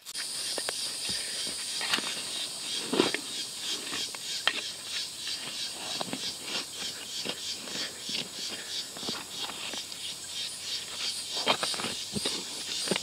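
Scattered knocks and scrapes of hand tools digging in mucky soil, loudest about three seconds in and again near the end, over a steady high-pitched buzz of insects.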